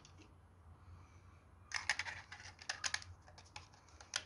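Light plastic clicks and taps of HO-scale model building wall panels and window frames being handled and pressed together, in a quick run of clicks from about two seconds in and one more near the end.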